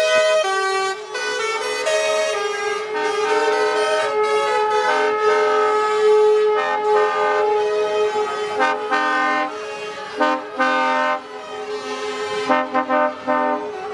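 Truck air horns sounding over one another: one long steady horn tone held through most of it, with other horn notes cutting in and out over it, and a run of short toots near the end.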